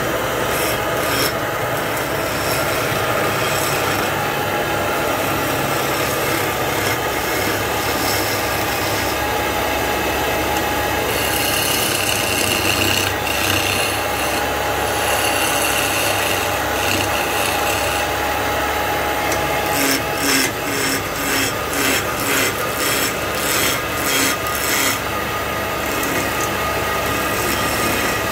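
Hand-held turning tool cutting into a spinning wooden blank on a wood lathe, giving a steady scraping rasp over the running machine. About two-thirds of the way in, the cutting comes in a run of short, even strokes, a little more than one a second.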